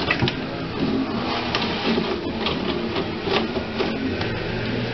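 A toilet paper roll turning on its wall holder, with the paper rustling and tearing as a cat claws and bites at it: irregular scraping and rustling, several strokes a second.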